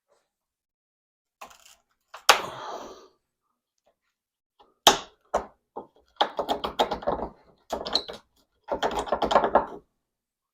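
Chisel being tapped into wood: a sharp single knock about two seconds in and another near the middle, then three quick runs of rapid taps.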